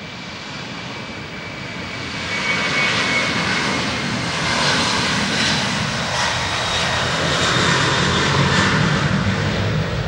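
Airbus A330-202 airliner's twin turbofan engines at takeoff power during the takeoff roll. The roar grows louder over the first couple of seconds as the jet draws level, then holds loud, with a high fan whine over it.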